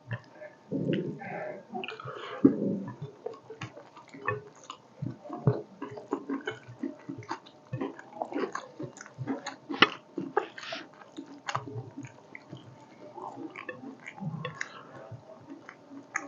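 Close-up eating sounds of a meal of fish curry and rice: wet chewing, lip smacks and many small sharp mouth clicks, irregular and continuous.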